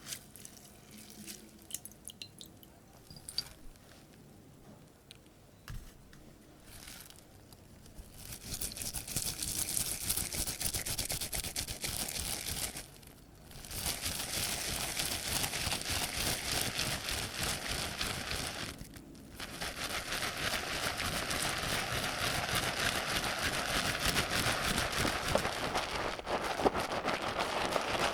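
Close, continuous crackling and scraping of soap-based slime ingredients being worked by hand. It starts about eight seconds in, after a few soft clicks, and stops briefly twice.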